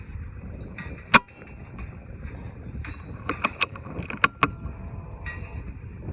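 Air rifle: one sharp crack of a shot about a second in, then a quick run of metallic clicks like the action being cycled, over a steady low rumble of wind on the microphone.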